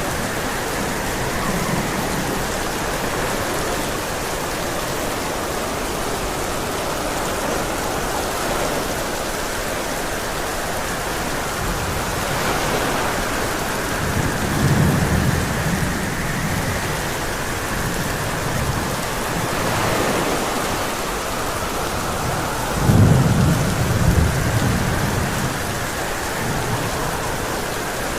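Heavy rain falling steadily in a thunderstorm. Low rolls of thunder come in about halfway through and again later.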